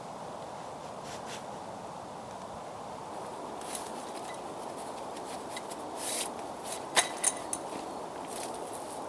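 Scattered rustling and a few sharp clicks and snaps over a steady background hiss. The loudest clicks come about seven seconds in.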